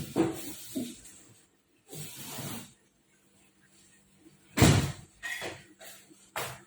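Kitchen handling sounds during food preparation: a run of irregular scrapes, rustles and knocks with short quiet gaps, the loudest a sharp knock a little past halfway.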